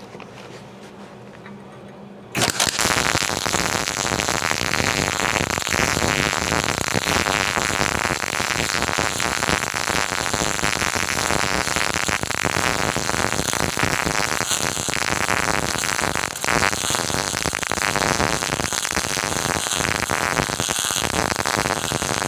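MIG welding arc crackling steadily as a bead is run with the torch pulled along the joint (a pull or drag technique), starting about two seconds in after a low hum. The welder considers this technique poor because it lays wire on top without penetrating between the two metals.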